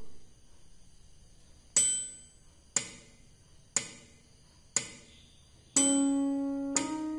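Yamaha portable keyboard with its metronome beating one per second: a bell-like first beat, then three short clicks. On the next beat the right hand starts the C-sharp major scale, one held note per click, C-sharp and then D-sharp.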